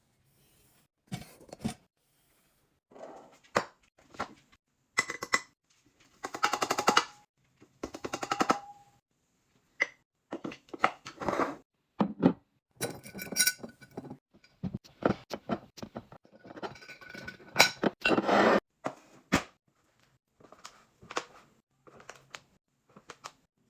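Household containers and packaged items being handled and set down while a fridge is restocked: a string of knocks and clatters, with a few bursts of quick rattling.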